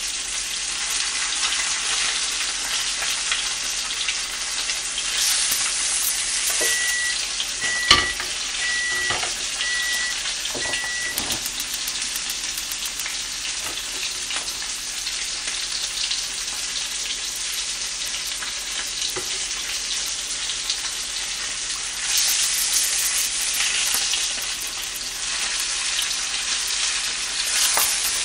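Mackerel fillet frying in a pan: a steady sizzle, with occasional scrapes of a wooden spatula. About seven seconds in comes a sharp click and a run of five short, evenly spaced beeps; the sizzle grows louder for a few seconds near the end.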